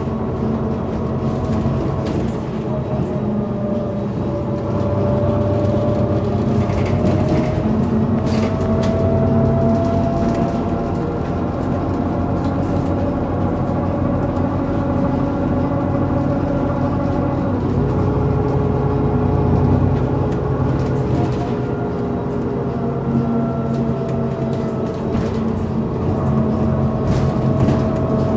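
Iveco Urbanway 12 city bus's Euro VI diesel engine running while the bus drives, with a whine that glides up and down in pitch as the speed changes. A few short rattles or clicks come through along the way.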